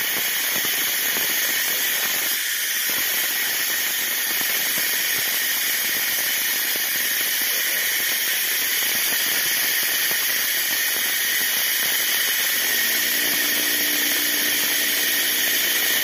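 Loud, steady hiss of compressed air rushing through a venturi-type vacuum refill tool as it pulls a vacuum on a car's cooling system before the coolant refill.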